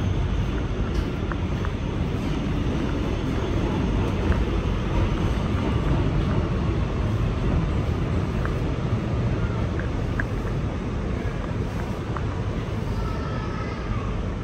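Steady low rumble and hum inside a Kawasaki R211T subway car standing at a station, with a few faint clicks.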